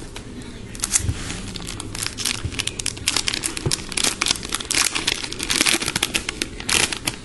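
A trading-card pack wrapper being torn open and crinkled by hand: a dense run of crackly rustles from about a second in until near the end.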